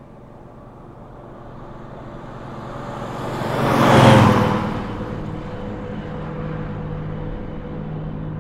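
A vehicle passing close at speed: a whoosh that swells, peaks about four seconds in and falls away. Under it is a low steady drone that carries on after the pass.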